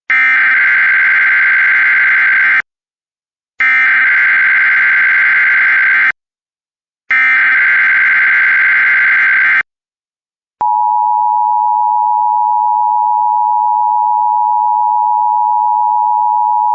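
Emergency Alert System SAME header: three bursts of digital data tones, each about two and a half seconds long with a second's gap between them, followed about ten and a half seconds in by the steady two-tone EAS attention signal, which opens an alert broadcast.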